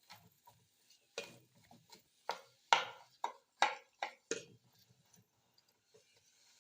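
A spoon knocking and scraping against a frying pan as sliced onion and bell pepper are stirred, about ten quick strikes that stop about four and a half seconds in.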